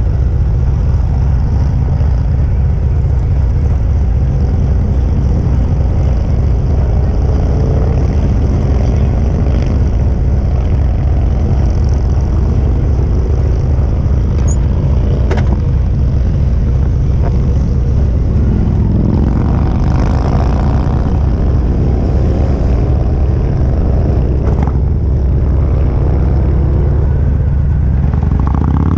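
Touring motorcycle riding at road speed: heavy wind rumble on the microphone over the steady engine, with the engine pitch starting to rise near the end as it accelerates.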